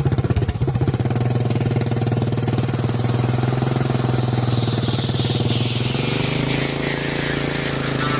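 Mini bike's Predator 212 single-cylinder engine running at a steady speed, with a high whine that slowly falls in pitch.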